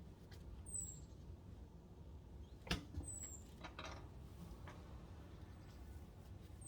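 Tilt-turn window hardware being worked by hand: a few faint clicks and small knocks, with one sharper knock about two and a half seconds in and a couple more just after.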